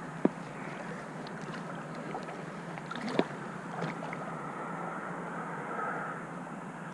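Steady rushing of flowing river water with some wind on the microphone, broken by a sharp click just after the start and another about three seconds in.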